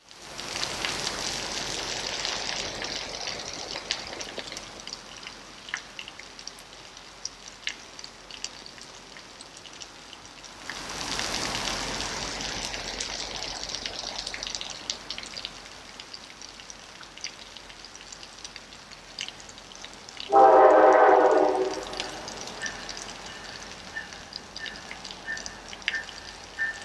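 Rain falling and dripping, with scattered small ticks, and the noise swells twice. About twenty seconds in comes one locomotive horn blast, a chord about a second and a half long, from the approaching freight train.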